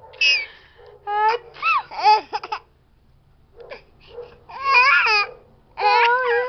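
A series of high-pitched vocal cries, each rising and falling in pitch: several short ones, a brief pause, then two longer cries.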